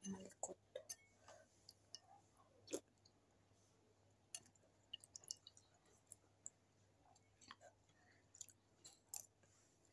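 Faint eating sounds: quiet chewing with scattered small clicks and clinks of a spoon in a stainless steel bowl, the sharpest click about three seconds in, over a faint steady low hum.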